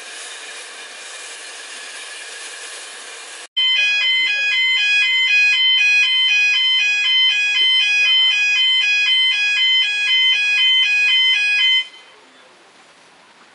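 Level-crossing warning alarm sounding loudly: an electronic two-tone warble switching back and forth between two pitches, which cuts off suddenly near the end. It signals that a train is about to cross. Before it, faint background music stops abruptly about three seconds in.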